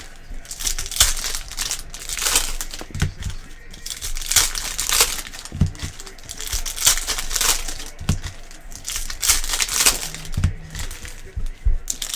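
Plastic wrappers of sports-card packs crinkling and being torn open, in repeated irregular bursts, with a few soft thumps of the cards and box being handled.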